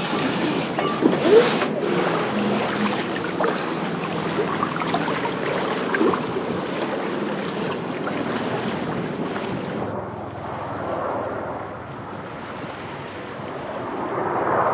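Water rushing and splashing along a sailboat's hull under sail, with wind blowing on the microphone. About ten seconds in, the sound turns duller and quieter as the high hiss drops out abruptly.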